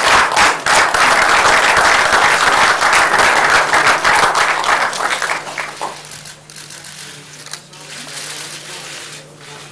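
Applause from a roomful of people, a dense crackle of many hands clapping, that dies away about six seconds in to quiet room noise.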